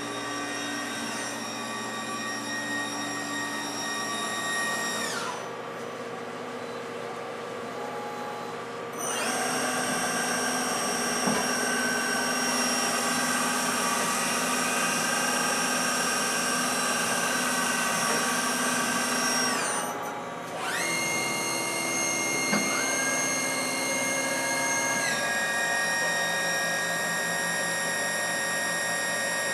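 Star SV20 CNC Swiss-type lathe running under power: a high-pitched machine whine of several steady tones that changes speed several times, dropping away about five seconds in, coming back up around nine seconds, dipping briefly near twenty seconds and shifting pitch again a few seconds later.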